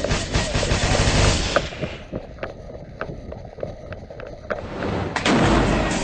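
Wind buffeting the microphone and rustling movement, loud at first and again near the end, with scattered sharp clicks in the quieter middle stretch.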